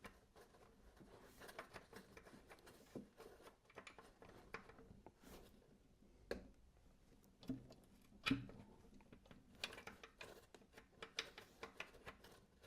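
Faint, scattered clicks and light metallic taps as a crank locking pin is tried against its threaded hole in the engine block, with a few louder knocks partway through. The pin will not thread in.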